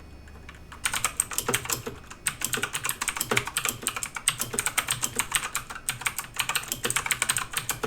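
Fast typing on a Tomoko MM021 (I-800) mechanical keyboard with clicky blue Cherry MX-clone switches: a rapid run of sharp key clicks that starts about a second in, with two short breaks.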